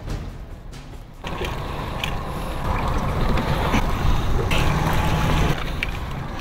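Large conventional fishing reel being cranked hard, a sustained mechanical gear rattle that starts abruptly about a second in, while a heavy hooked fish is reeled up to the boat.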